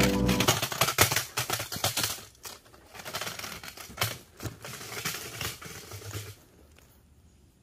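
A snake-catching pole, kicked over, clattering and sliding down through leaf litter: a rapid run of clicks and rattles, loudest at first, that stops about six seconds in.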